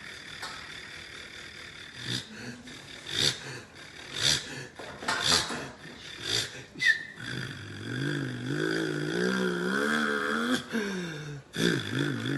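A man's voice imitating a bus engine starting and running: puffing snorts about once a second, then a hummed engine note that wavers up and down like revving, dropping away briefly near the end before starting again.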